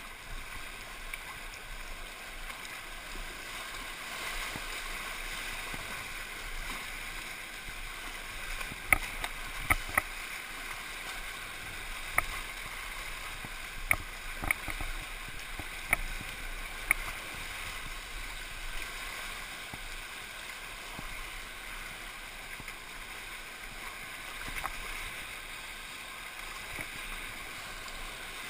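Steady rushing of a flood-swollen river's waves around a kayak, heard from a camera mounted low on the boat. About midway, a run of roughly seven sharp knocks over some eight seconds stands out above the water.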